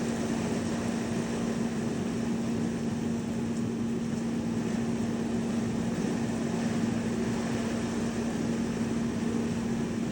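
Heavy rain falling in a storm, a steady hiss with a constant low hum underneath.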